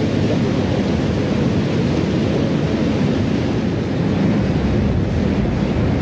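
Wind rumbling on the microphone, a steady low noise with no distinct events.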